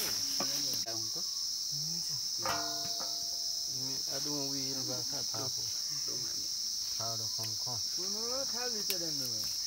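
Steady high-pitched insect chorus, with people's voices talking at intervals over it.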